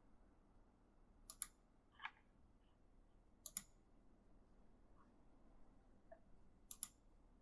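Slow, hesitant typing on an E-Element mechanical gaming keyboard: a few sharp key clicks, some in quick pairs, with gaps of a second or more between them. The keystrokes are faint.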